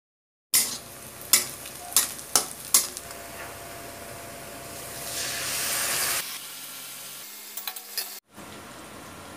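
Chopped onion sizzling as it fries in oil in a metal kadai, with a steel spatula scraping and clacking against the pan about five times in the first three seconds and a few more times near the end. The sizzle swells louder around five to six seconds in.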